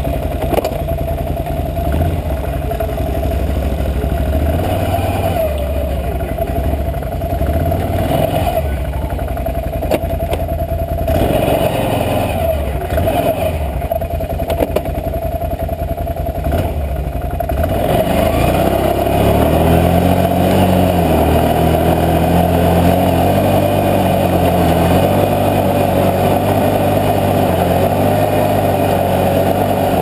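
Can-Am Outlander 650 XMR ATV's V-twin engine running under load on a trail climb. The engine note rises and falls with throttle, then settles into a steadier, slightly louder run about two thirds of the way through.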